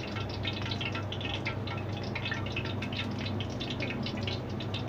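Dense, steady crackling over a low, steady hum.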